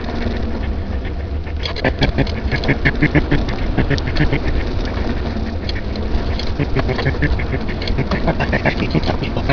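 Fast-forwarded outdoor recording: a steady wind rumble on the microphone, overlaid with rapid, irregular chattering clicks and squeaks from sounds squeezed by the speed-up.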